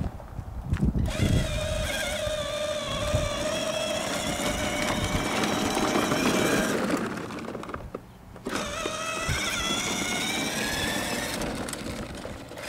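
Electric motor and gearbox of a battery-powered ride-on toy Jeep whining steadily as it drives, with its plastic wheels rolling on asphalt. The whine starts about a second in, stops briefly around seven seconds in as the pedal is let up, then starts again.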